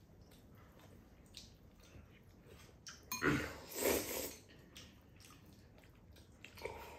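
A person slurping up jjajang noodles: one long wet slurp a little over three seconds in, lasting about a second, with a few faint clicks around it.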